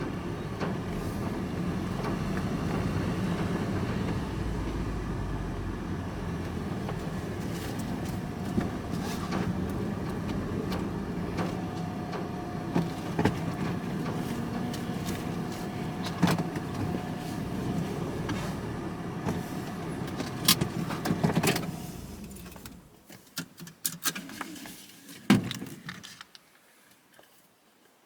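Vehicle running, heard from inside the cab, with occasional clicks. About 23 seconds in the engine stops, followed by a few sharp clicks and knocks.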